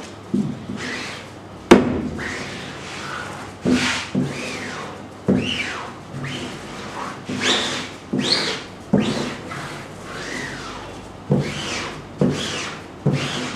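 Squeegee pushed repeatedly across the ink-covered mesh of a wooden screen-printing frame. About ten strokes, each a knock as it meets the frame and then a scraping rub whose pitch rises and falls. One sharp knock a couple of seconds in is the loudest.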